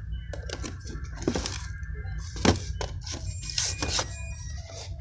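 Boxed Funko Pop vinyl figures being pushed and shuffled against each other in a cardboard case: a run of light knocks and scrapes of cardboard boxes, the loudest about two and a half seconds in.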